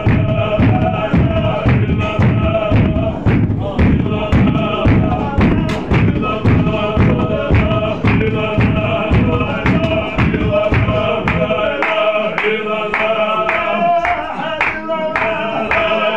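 Chechen zikr: a group of men chanting in unison while moving in a circle, over a steady beat of stamping feet, about two to three strokes a second.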